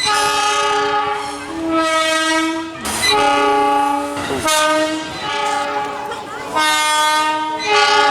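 Electric commuter train horns sounding a string of long blasts, each one to two seconds, at two slightly different pitches that alternate with hardly a break, trains trading horn blasts back and forth.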